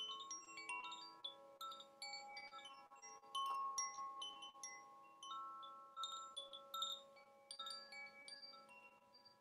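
Chimes played for sound healing: many notes struck at irregular moments, each ringing on and overlapping the others. The ringing grows fainter near the end.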